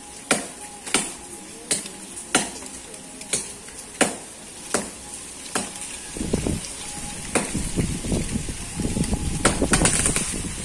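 A blade chopping into a tree branch in steady strokes, about one every three-quarters of a second. About halfway through, gusts of wind buffet the microphone in a low rumble under the strokes.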